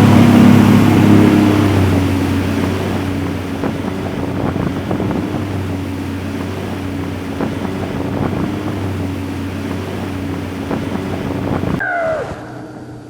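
Motorboat's outboard engine running steadily under way, with water and wind noise over it. Near the end the sound cuts off suddenly to a much quieter scene.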